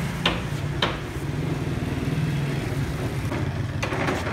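An engine running steadily with an even low hum, with two sharp taps in the first second.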